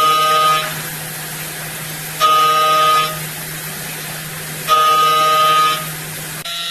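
Milling cutter in a DMG Mori vertical machining centre squealing with a pitched, horn-like tone three times, once on each cutting pass about two and a half seconds apart, over the machine's steady hum. Near the end the hum stops and a steadier cutting tone takes over.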